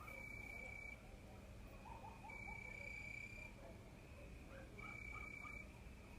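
Crickets singing at night: a steady high trill about a second long, repeating every two seconds or so, with faint short calls between.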